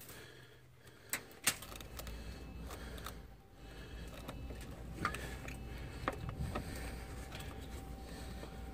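Scattered small metallic clicks and knocks of hand tools working a bolt into place, over a steady low hum that starts about a second and a half in.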